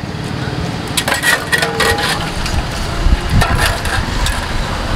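Steel ladles and spoons clinking against stainless-steel chutney containers and a steel bowl as chutney is spooned over a street-food dish: several short sharp clinks over a steady background din.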